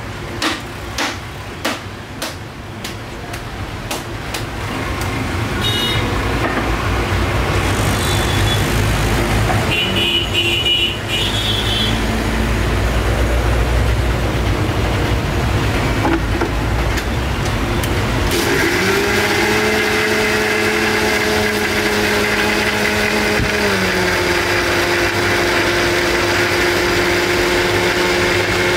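Background rumble with a few clatters, then, about two-thirds of the way in, an electric countertop blender starts and runs steadily, blending a red juice. Its motor whine drops slightly in pitch partway through the run and edges back up near the end.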